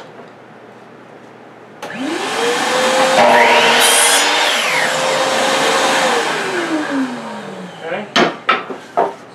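Electric miter saw switched on and run up to speed, its blade cutting through a wooden board, then switched off and winding down with a falling whine. A few sharp knocks of wood being handled follow near the end.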